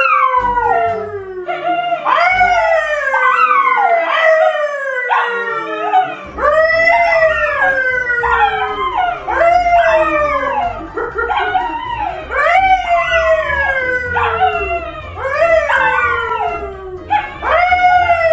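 Two dogs, a yellow Labrador and a brown poodle, howling together with a man howling along. The long howls overlap and follow one another every second or two, each rising and then falling in pitch.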